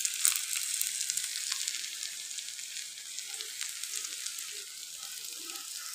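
Leafy-green fritters (bora) frying in hot oil in a kadai: a steady sizzle with fine crackles, slowly getting a little quieter.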